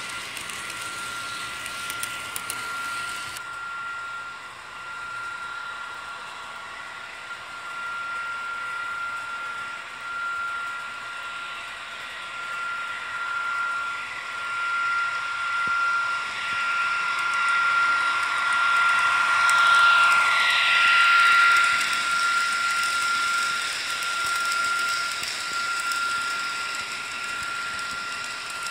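HO scale model train running on the track, a steady mechanical running sound with a thin high whine. It grows louder as the train comes near and passes close by, loudest about twenty seconds in, then eases off.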